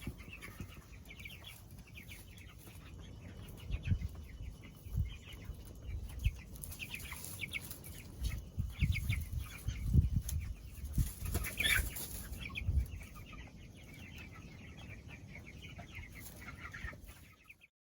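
A flock of half-grown meat chicks peeping and cheeping, with scattered low thumps among them.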